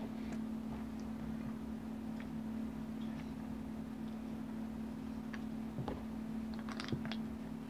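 A few light clicks and taps of AR-15 rifle parts being handled, most of them clustered near the end, over a steady low hum.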